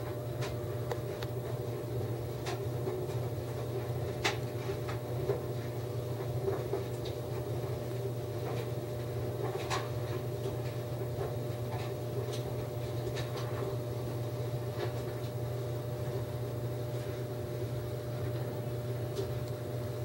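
A steady low hum with a faint constant tone above it, and irregular small clicks and ticks scattered throughout.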